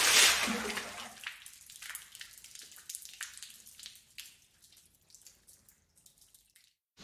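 Paint thrown from a bucket against a wall: the tail of a loud wet splash dies away into scattered drips and spatters, which thin out and fade about four seconds in.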